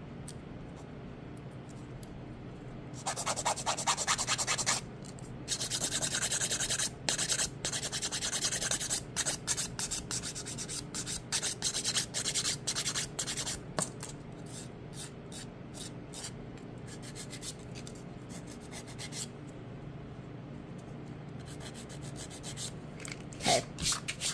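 Hand nail file rasping back and forth over cured acrylic on a nail tip in quick strokes, using the file's 180-grit side to smooth the acrylic down. The filing starts a few seconds in, runs densely with short pauses, then thins out to scattered strokes after about fifteen seconds.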